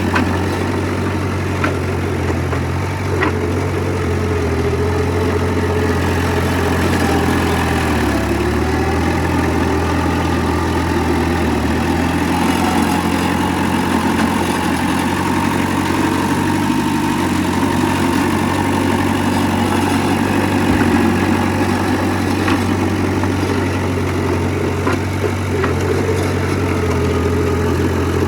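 Heavy diesel engine of earthmoving machinery running steadily, its note shifting slightly about a third of the way in and again past halfway.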